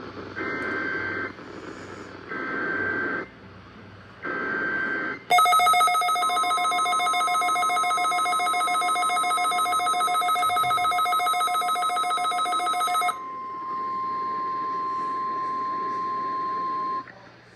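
Three short bursts of Emergency Alert System SAME header data tones from NOAA Weather Radio, then the steady 1050 Hz NOAA Weather Radio warning alarm tone, held about eleven seconds. Over the first eight seconds of it, a second, louder buzzing electronic alarm tone with many overtones sounds and then cuts off; this is a weather radio receiver's own alert.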